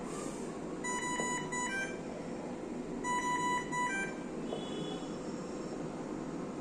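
Dräger ventilator alarm beeping: two bursts of a several-note electronic alarm tone about two seconds apart, over a steady background hiss. The alarm goes with a 'Device failure' fault, which the uploader puts down to a faulty battery.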